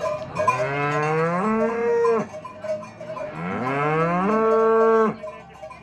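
An ox mooing twice: two long calls that each slide up in pitch, hold steady, then cut off sharply.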